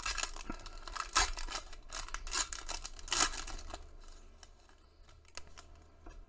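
Foil wrapper of a 2019-20 Panini Prizm basketball card pack being torn open and crinkled by hand, a quick run of sharp crackling rustles. After about four seconds it dies down to a few faint clicks as the cards are handled.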